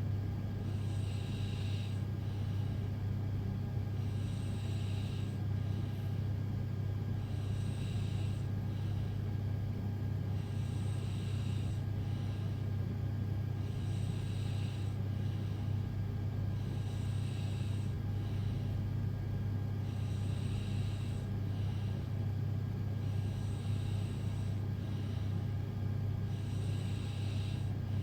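A sleeping young woman snoring lightly: a hissy breath comes about every three and a half seconds, in an even rhythm, over a steady low hum.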